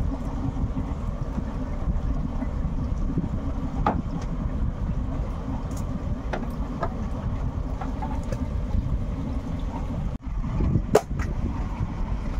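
Steady low rumble of a fishing boat's engine running, with a few light knocks and clicks on deck.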